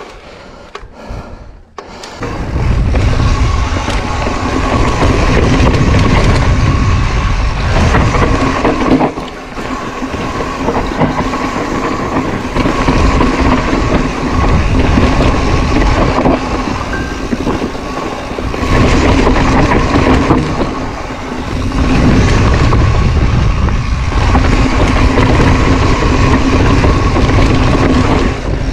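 Mountain bike descending a dirt trail at speed, heard through a helmet-mounted GoPro: wind rushing over the microphone and the rumble of tyres on dirt, with a steady hum underneath. It is quieter for about the first two seconds, then loud, easing briefly twice.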